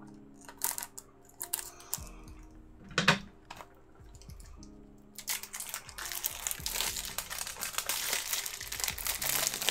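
Plastic shrink wrap being opened on a Blu-ray case: a few sharp clicks and taps, the loudest about three seconds in, then from about five seconds in the wrap crinkles continuously as it is pulled off.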